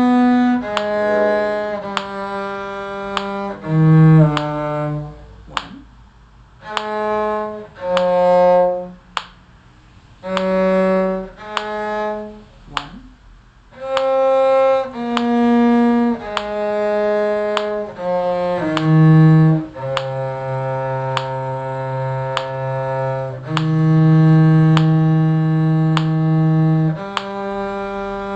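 Bowed string instruments playing a slow piece in short phrases, with a low cello-range part underneath; the notes become longer and more sustained about two-thirds of the way through.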